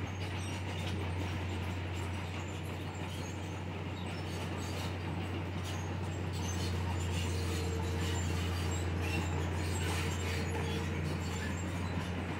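Komatsu D31PX crawler bulldozer's diesel engine running steadily under work, with scattered clanks and clicks from the steel tracks and pushed rock. A faint whine joins in for a few seconds past the middle.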